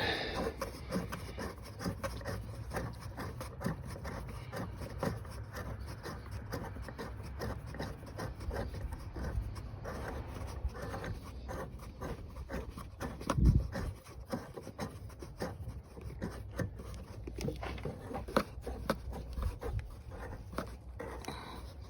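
Plastic thumb nut on a Jeep Wrangler JL taillight being tightened by hand, a steady run of small rubbing clicks as it threads down. A dull thump about halfway through.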